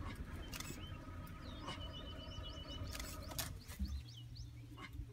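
Small birds chirping, many short rising and falling calls, over a low outdoor rumble, with a couple of brief knocks, about half a second in and about three seconds in.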